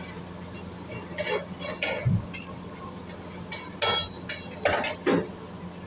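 Metal spatula clanking and scraping against a steel wok during stir-frying, about ten irregular strikes, over a steady low hum from the kitchen.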